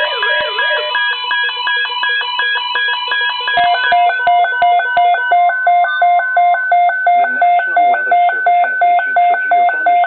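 Several NOAA weather radios sounding their alert tones for a Severe Thunderstorm Watch, overlapping. A siren-like warble stops about a second in under quick high beeping. From about four seconds in, a loud two-pitch beep pulses roughly two and a half times a second.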